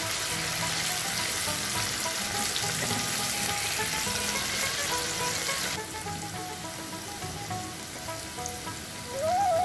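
Diced potatoes and chopped tomato frying and sizzling in oil in a pan, with a steady hiss that cuts off abruptly about six seconds in.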